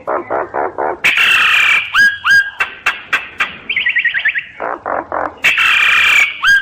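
Common myna singing a varied song: gurgling notes, two long harsh squawks, clear up-slurred whistles, a quick run of short falling notes near the middle, and sharp clicks.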